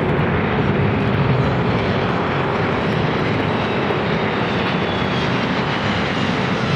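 McDonnell Douglas MD-83 jet airliner rolling past at low power, its two rear-mounted Pratt & Whitney JT8D turbofans giving a steady jet rumble with a faint high whine on top.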